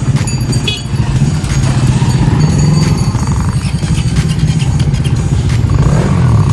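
An engine running steadily close by, with a low, rapidly pulsing drone.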